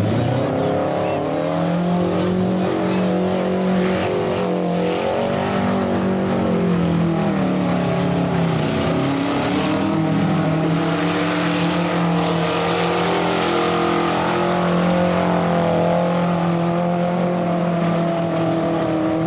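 Several demolition derby cars' engines running hard and revving up and down together, with a few bangs of cars hitting each other.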